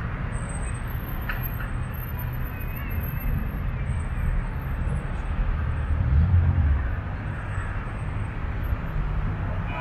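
Traffic around a busy roundabout: a steady rumble of car engines and tyres, with one vehicle passing louder about six seconds in.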